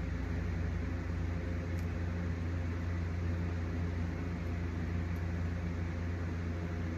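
A steady mechanical hum: a low drone with a hiss above it, holding level throughout, typical of a running fan or motor.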